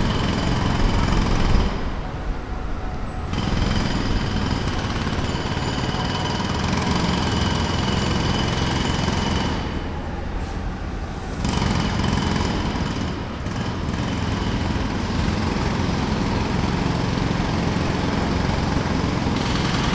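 Jackhammer hammering rapidly at a construction site. It breaks off briefly twice, about two seconds in and again about ten seconds in, while a steady low rumble continues underneath.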